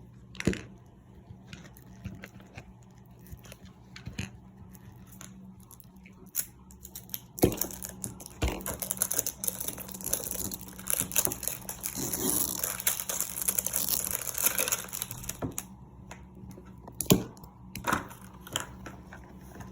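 Plastic wrapping being torn and crinkled as a Mini Brands surprise capsule is unwrapped, with scattered clicks of plastic being handled. The crinkling is densest from about seven to fifteen seconds in.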